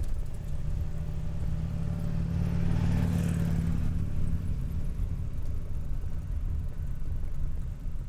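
A car passes, swelling and then fading, loudest about three seconds in, over a steady low rumble.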